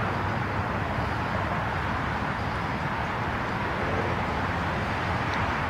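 Steady outdoor background noise: an even hiss and low rumble with no distinct events.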